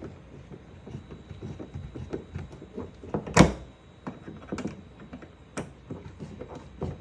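Scattered clicks and knocks of a Phillips screwdriver driving a short screw into plastic door trim, with one loud sharp knock about three and a half seconds in.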